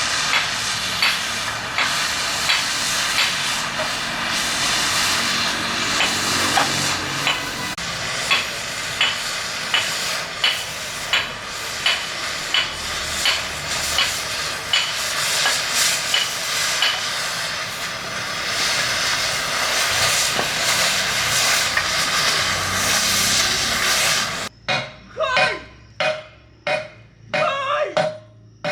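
Gas cutting torch hissing steadily, with short sharp metallic ticks about every half second to second. Near the end the hiss cuts off suddenly, and a few separate strikes on metal follow.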